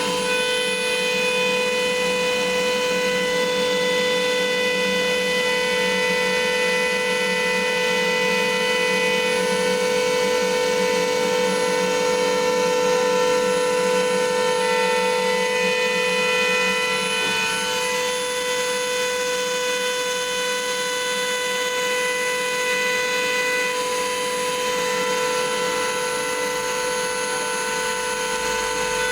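4-axis CNC machining center engraving a metal tire mold: a steady whine of several tones over a cutting hiss, with the tones shifting slightly about two-thirds of the way through.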